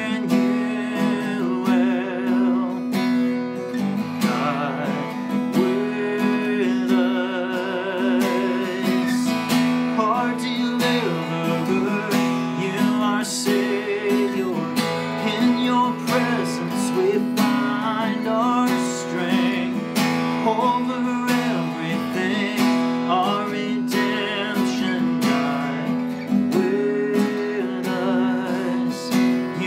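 A man singing a worship song and accompanying himself on acoustic guitar.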